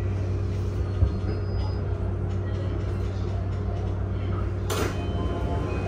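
Inside a JR East E235-series commuter train car standing at a station platform: a steady low hum from the car's onboard equipment, a single thump about a second in, and a short, sharp hiss near the end.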